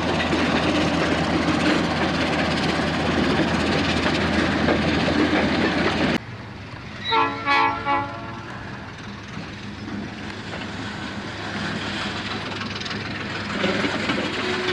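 First-generation Baldwin diesel switcher engine running loud as the locomotive pulls a boxcar past. After a sudden cut, a few short blasts on its replacement Southern Pacific air horn, described as whiny, come about seven seconds in, followed by the quieter rumble of freight cars rolling by.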